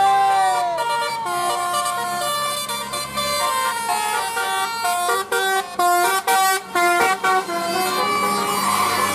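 Bus 'telolet' basuri multi-tone air horn playing a tune: a rising and falling swoop, then a run of stepped notes, some cut by short breaks.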